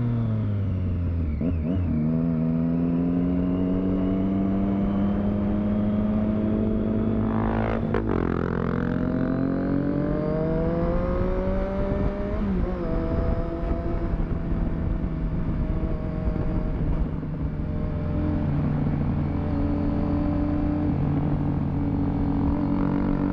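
Triumph Street Triple 675's three-cylinder engine running under way, its pitch climbing slowly, then dropping and picking up again about one and a half, eight and twelve seconds in.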